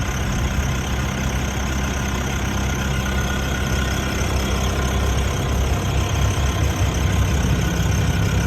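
JCB 214 backhoe's diesel engine idling steadily.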